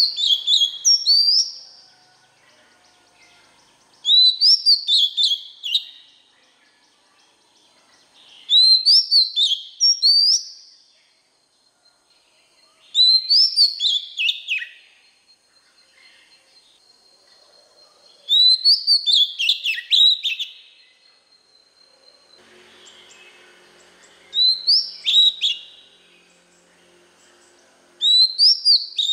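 Male oriental magpie-robin singing: short phrases of quick, clear whistled notes sliding up and down, each about two seconds long and repeated every four to five seconds, seven phrases in all.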